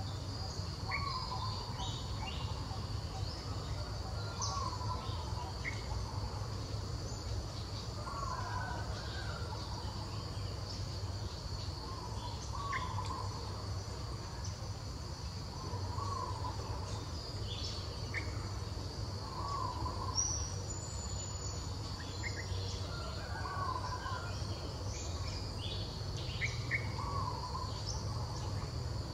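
Steady high drone of insects, with a bird giving a short call that repeats every three to four seconds and a few brief chirps. A steady low rumble runs underneath.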